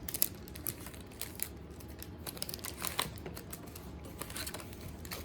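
Crinkling and irregular clicking of packaging being handled: foil-wrapped trading card packs and a cardboard hobby box being opened and sorted, with a few sharper snaps.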